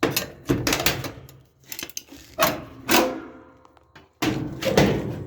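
Sheet-metal dryer panel being pried loose with a spatula, its clips releasing: a series of metallic clanks and rattles, loudest near the start, around the middle and again near the end.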